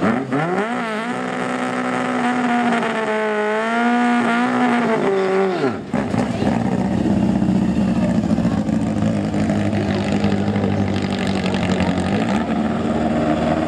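VW Beetle drag car's engine revving hard: the pitch climbs steeply and is then held high, wavering, for several seconds. About six seconds in it cuts to the engine running steadily at much lower revs, with a brief blip near the end.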